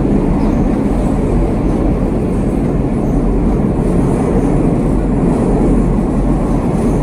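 Minsk Metro train running between stations, heard from inside the carriage: a steady, loud, deep rumble of wheels and running gear in the tunnel.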